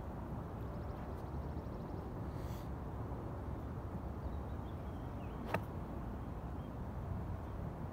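A golf club striking a ball on a full swing: one sharp click about five and a half seconds in, over a steady low background rumble.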